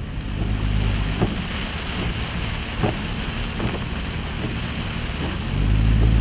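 Heavy rain beating down, heard from inside a vehicle, over a steady low rumble of the vehicle and water, with a few sharp ticks. The rumble grows louder near the end.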